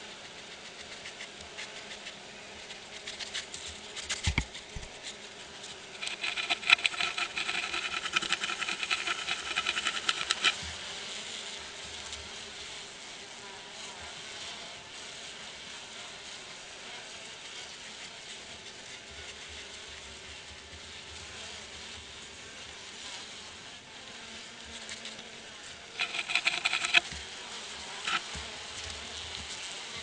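Honey bees buzzing steadily at the hive entrance while a skunk raids it. Bursts of rapid scratching on the hive's wooden landing board come from about six to ten seconds in and again briefly near the end. The skunk is scratching to draw the guard bees out.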